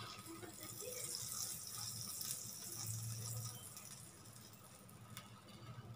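Butter sizzling as a soft hiss under a pav on a hot tawa, fading out after about three and a half seconds as the heat is cut.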